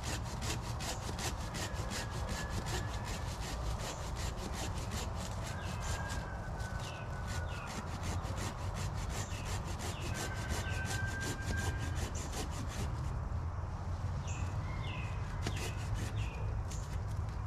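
Hand saw cutting through a small tree trunk close to the ground, with fast, even back-and-forth strokes. The strokes thin out and come more sparsely in the last few seconds.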